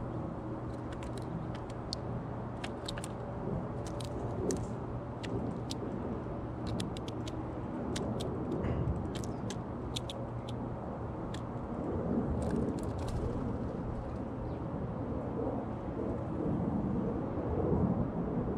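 Scattered sharp clicks and taps of a jay pecking and stepping on a seed-covered feeder tray, thinning out near the end, over a steady low rumble.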